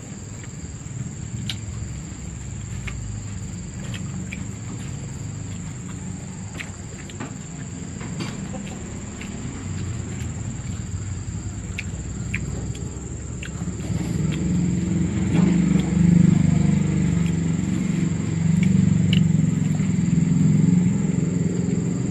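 Close eating sounds, with soft chewing and lip-smacking clicks from someone eating rice and fish curry by hand, over a steady low rumble that grows louder about two-thirds of the way through.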